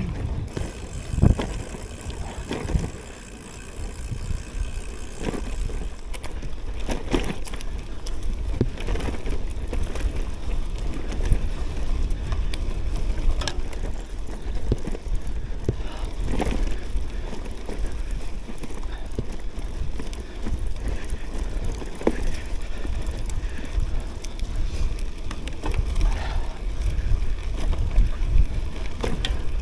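CUBE Cross Race Pro gravel bike rolling over a dirt and grass forest track: steady tyre rumble and wind buffeting the action camera's microphone, with scattered knocks and rattles as the bike goes over bumps. It briefly goes quieter about three seconds in.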